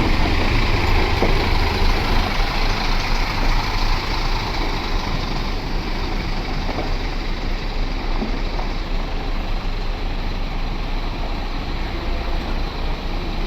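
Diesel bus engine running close by, a steady low rumble that is heaviest for the first three seconds or so, then settles slightly quieter.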